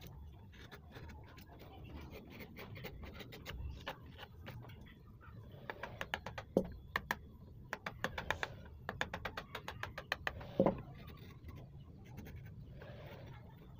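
Hand chisel cutting and scraping into a teak relief carving: a quick run of small clicks and scrapes through the middle, with two sharper knocks.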